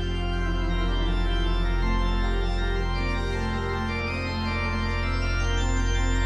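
Church pipe organ playing slow, sustained chords over a held deep bass note, the upper notes changing every second or two.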